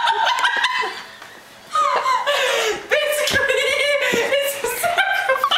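A group of people laughing hard together, with a brief lull about a second in before the laughter picks up again.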